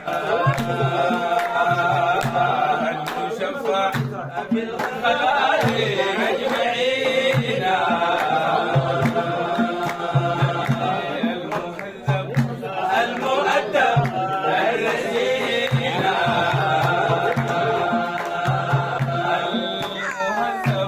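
Sudanese prophetic madih: voices chanting a religious song in Arabic over a drum beating a steady rhythm.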